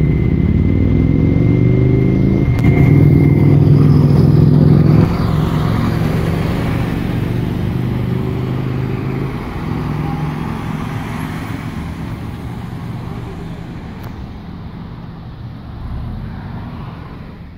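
Motor vehicle engine running close by with a low, steady drone. It is loudest over the first five seconds and then slowly fades.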